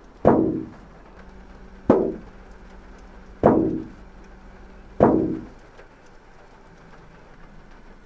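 Four heavy bangs on the car's roof, heard from inside the cabin, about a second and a half apart, each ringing briefly as it dies away.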